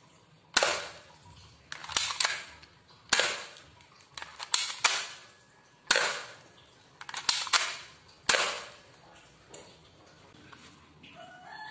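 Airsoft pistol firing a string of sharp shots over about eight seconds, some single and some in quick pairs and triplets, at irregular intervals.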